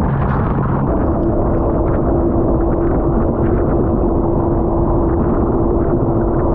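Kawasaki STX-12F jet ski's engine running under way through chop, with heavy wind noise. About a second in, the engine note steps up to a higher pitch and then holds steady.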